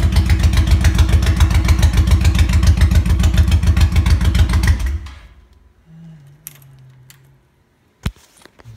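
Honda Shadow V-twin motorcycle engine running steadily with an even beat of exhaust pulses. About five seconds in it shuts off and the sound dies away within half a second. A single sharp click comes near the end.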